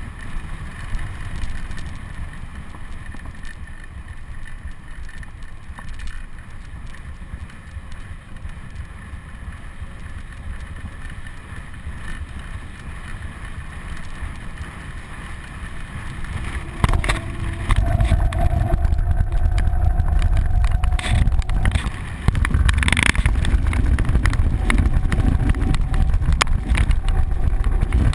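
Wind buffeting the camera microphone on a mountain bike speeding down an asphalt road, over a low rumble of rolling tyres. About seventeen seconds in the wind noise jumps to much louder, heavy gusting as the rider tucks and the speed climbs.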